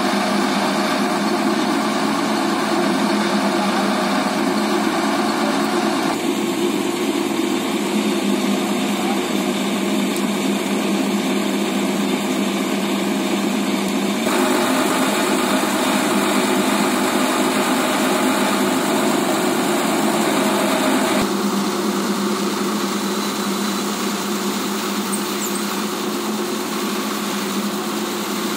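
Crane truck's diesel engine running steadily at idle, a continuous drone whose tone shifts abruptly a few times.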